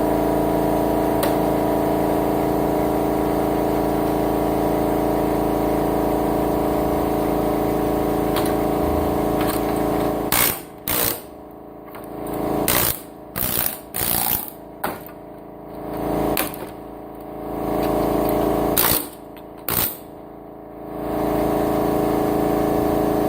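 Pneumatic air chisel hammering steadily for about ten seconds. From then on it runs in short bursts with pauses between them, knocking components off circuit boards.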